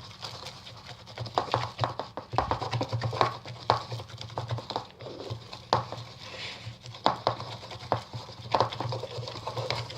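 Sticky homemade slime being stirred and worked in a bowl: irregular wet clicks, smacks and taps as the mixture, just activated with contact lens solution and baking soda, turns sticky and starts to pull strings. A low steady hum runs underneath.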